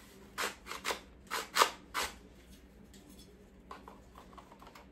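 Plastic parts of a Steyr AUG gel blaster being handled and fitted together: five sharp clacks in the first two seconds, the fourth the loudest, then a few lighter taps near the end.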